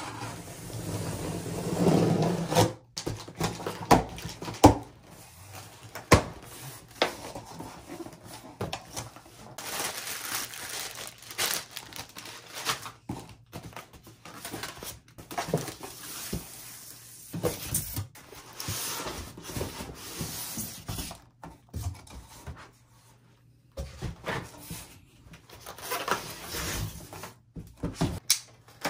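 Unboxing sounds: packing tape slit and torn on a cardboard box, then cardboard flaps, styrofoam packing blocks and plastic wrap rubbing and rustling as the parts are pulled out, with scattered knocks. The loudest stretch, the tape being cut, is in the first few seconds.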